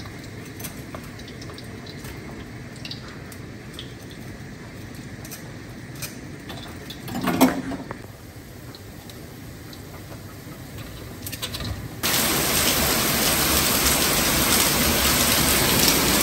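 Tater tots frying in a skillet of oil, a quiet sizzle with light clicks of metal tongs. About twelve seconds in it cuts suddenly to steady, loud rain.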